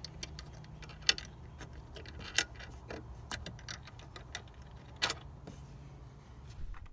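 Irregular small metallic clicks and clinks of a hex tool working a small 4 mm Allen-head bolt and washer into a compressor mounting bracket, with a few sharper clinks about one, two and a half, and five seconds in, over a low steady hum.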